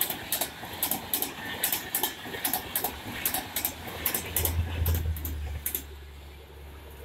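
Express passenger coaches passing at speed, their wheels clicking over the rail joints in a fast, uneven rhythm over a rolling rumble. The clicking stops a little before the end, leaving a low hum.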